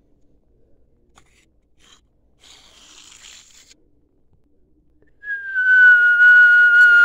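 A loud, high whistle starts about five seconds in, dips slightly in pitch, then holds steady: the whistle of an incoming artillery shell.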